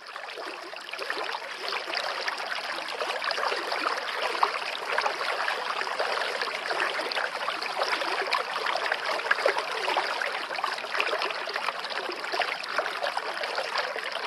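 Water of a waterfall rushing and splashing over rocks: a steady, dense splashing with many small splashes in it, rising in over the first second.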